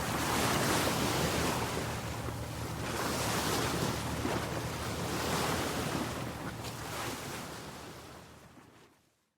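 Ocean waves washing in and out, swelling about every two to three seconds, then fading away to silence near the end.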